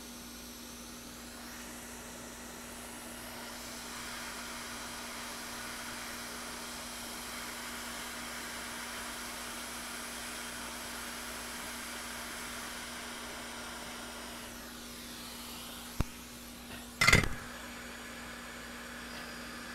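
Steady airy hiss of a hot-air rework station blowing onto a burnt, shorted component on a laptop motherboard to desolder it, over a low steady hum. A sharp click comes about 16 seconds in, then a brief, much louder clatter a second later.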